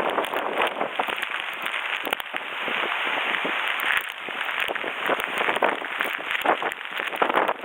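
Heavy wind-driven typhoon rain beating on surfaces: a dense hiss full of spatters that swells and eases with the gusts.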